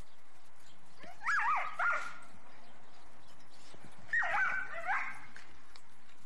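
A dog gives two short bouts of high, wavering yips, about three seconds apart.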